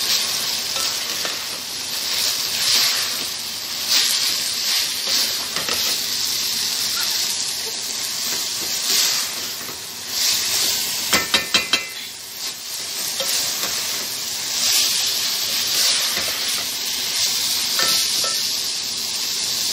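Shredded cabbage and green capsicum sizzling in a pan over a high flame while a spatula stirs and tosses them, cooking off their water. About halfway through, a quick run of sharp metallic clinks as the spatula knocks against the pan.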